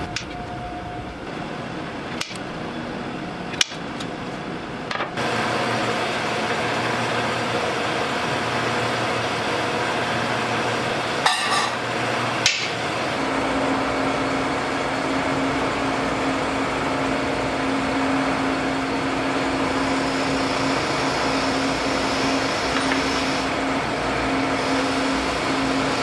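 A few sharp clicks as a wooden drum hoop is punched by hand, then the steady whir of a buffing wheel polishing cast drum feet, with a drill press motor hum joining about halfway.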